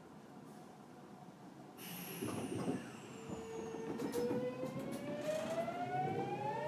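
Kintetsu Series 21 train's Mitsubishi IGBT VVVF inverter and traction motors as the train pulls away from a stop: after a burst of noise and knocks about two seconds in, a whine begins about a second later and climbs steadily in pitch as the train gains speed.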